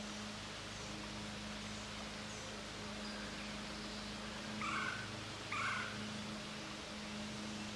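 Woodland ambience: a steady low hum and faint high bird chirps, with two short mew-like animal calls about a second apart a little past the middle.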